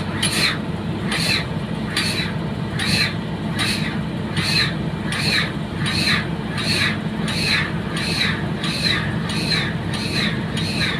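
Pile-driving hammer striking over and over at about one blow every 0.8 seconds, each blow ringing with a short high squeal, over the steady engine drone of the piling rig.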